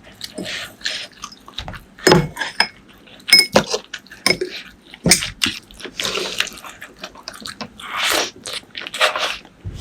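Close-miked mukbang eating: irregular wet chewing and crunching with sharp mouth clicks.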